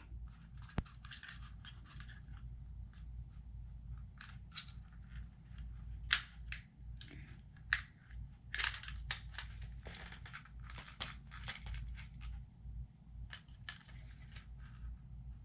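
Scattered small clicks, taps and scrapes of hands and a screwdriver working at the plastic shell of an SJRC F11 drone remote controller as it is pried open, with a few sharper snaps about six and eight seconds in.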